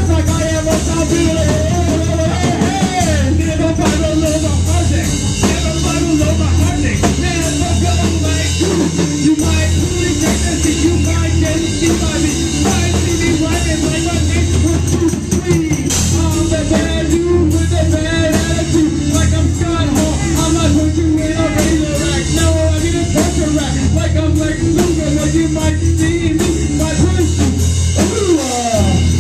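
Live rock band playing loudly: electric guitar, drum kit and a low bass line, with a voice singing over it.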